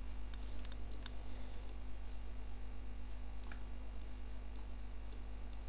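Steady low electrical hum, with a few faint computer-mouse clicks in the first second and one more midway through.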